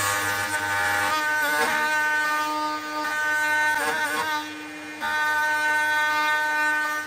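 Compact router running with a steady whine while its bit cuts a shallow strap slot across pine floor planks through a jig. The sound drops away briefly about four seconds in, comes back about a second later, then falls off near the end.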